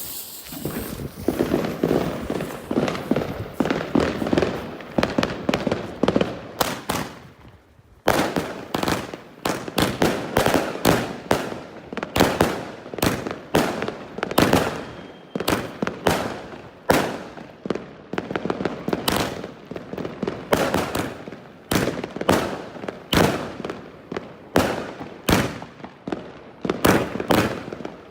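Consumer fireworks going off: dense crackling for about the first seven seconds, a brief lull, then a rapid string of sharp shots and bursts, about two to three a second.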